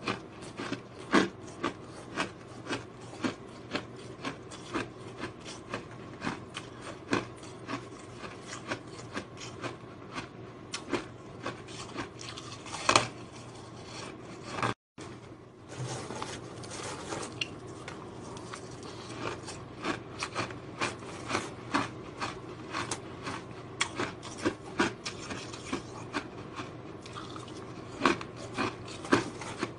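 Powdery ice being bitten and chewed, a run of sharp gritty crunches about twice a second. The sound cuts out for a moment about halfway through.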